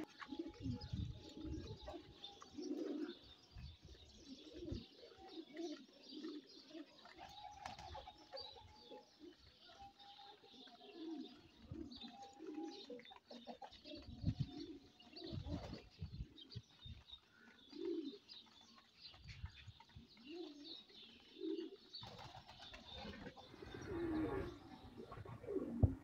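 Domestic pigeons cooing over and over, faint, with lighter high chirping of small birds mixed in.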